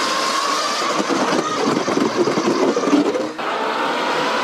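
Small petrol engine running at a steady speed, rougher in the middle, with a brief dip in level about three and a half seconds in.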